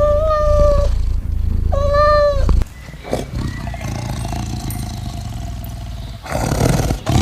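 Domestic cat meowing: two drawn-out meows, the first at the start and the second about two seconds in. The sound then cuts to a quieter, noisy background, with a loud rushing burst near the end.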